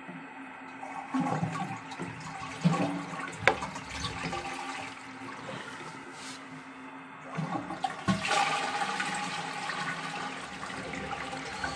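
A few plastic knocks and clicks from the toilet cistern's push-button mechanism being handled, then, about eight seconds in, the toilet flushing: water rushing out of the cistern into the bowl.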